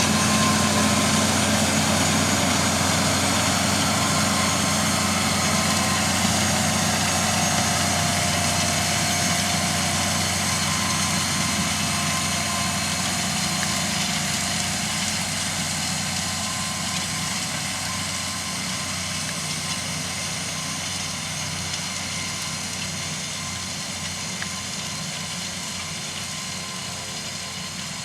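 John Deere tractor diesel engine running steadily, gradually getting quieter.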